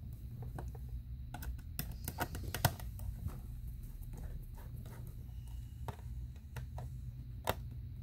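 Small irregular metal clicks and ticks as a screw is set by hand and turned with a small screwdriver in a Mac mini's aluminium chassis, most of them bunched about two to three seconds in, with a sharper click near the end.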